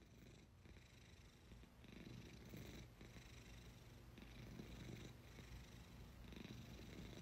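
Faint purring of a domestic cat lying on a person's chest. The purr swells and fades about every two seconds, with each breath.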